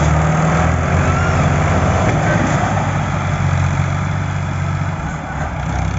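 Fiat Al-Ghazi tractor's diesel engine running steadily under load as it hauls a trolley loaded with sugarcane out of deep mud, with a brief dip about five seconds in.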